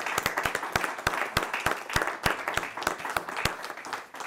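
Audience applauding, many hands clapping at once; the clapping thins out near the end.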